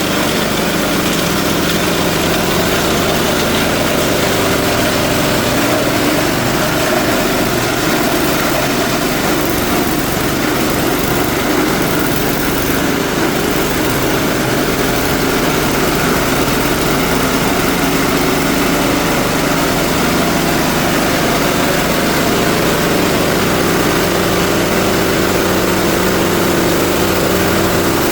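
Engine-driven chopper-grinder machine running steadily at a constant speed.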